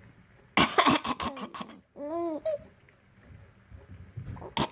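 A person coughs a few times in a rough, noisy burst. A baby answers with one short, high, arched laughing squeal just after two seconds. Another cough comes right at the end.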